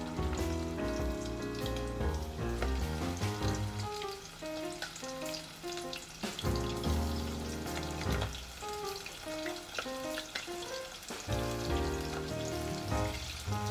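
Potato-starch-coated chicken thigh pieces sizzling as they are deep-fried in oil in a small pot, with more pieces being added one by one. Background music with a melody and bass line plays over the sizzle.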